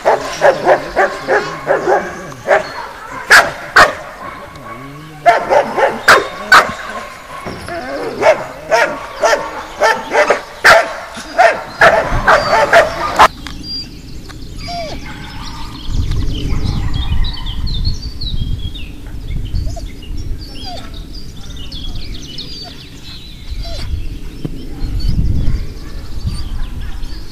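Dog barking hard and repeatedly at a protection-sport helper, about two to three barks a second, with a short break about four seconds in. The barking cuts off abruptly about halfway through, leaving a low rumble and faint bird chirps.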